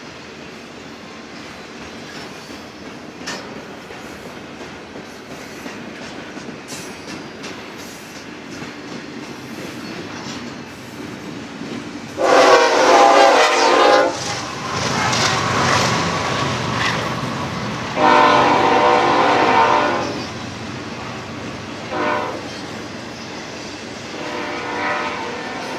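Double-stack intermodal freight cars rolling past with a steady rumble and wheel clicks. About halfway through, a diesel locomotive's multi-chime horn sounds a series of blasts: two long loud ones, then a short one and a last longer one.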